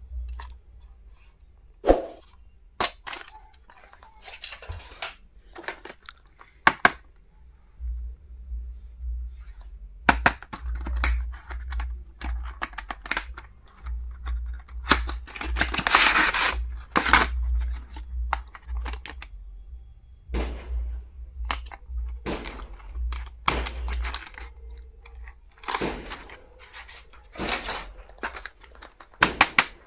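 Stationery being unboxed and handled by hand: irregular clicks, taps and short bursts of packaging rustle, with low bumps against the surface.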